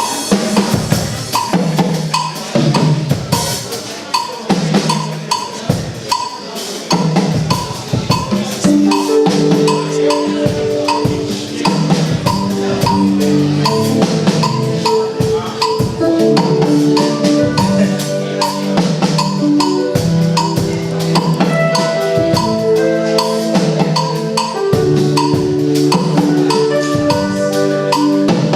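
Instrumental music with a drum kit and percussion playing a steady beat; a repeating melodic line of held notes joins about nine seconds in.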